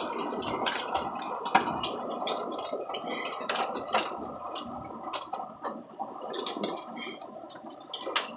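Heavy rain pelting an RV, heard from inside, a dense steady patter with scattered sharp ticks of harder hits on the roof and window.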